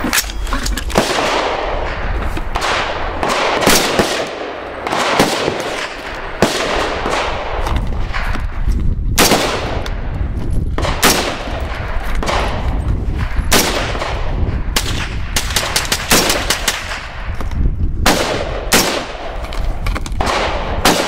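Gunfire on a shooting range: many sharp shots at irregular intervals and of differing loudness, from more than one gun, each trailed by a short echo.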